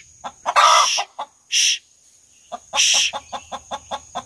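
A hen calling: a few loud squawks, then from about three seconds in a quick run of clucks, about five a second. This is the fussing a hen often makes when another hen is in the nest box she wants to lay in.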